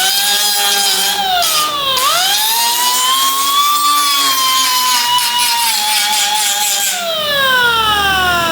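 Power grinder running on metal. It spins up at the start, bogs down briefly in pitch about two seconds in as it is pressed into the work, then recovers and whines on. About seven seconds in it is lifted off and winds down, its pitch falling. This is grinding down lumpy spot welds on a car's door jamb.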